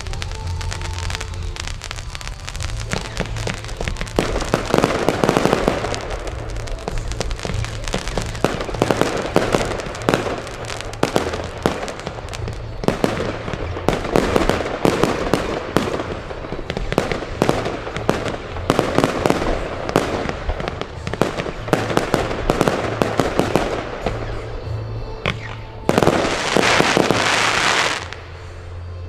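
Consumer fireworks battery firing a rapid run of shots that launch and burst overhead with repeated bangs and crackle. Near the end comes a dense crackling burst lasting about two seconds.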